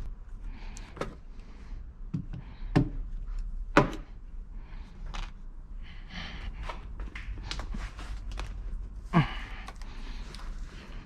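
Hand tools working screws and trim loose inside a car's interior: crunchy scraping with four sharp knocks, the loudest about four seconds in and another near the end.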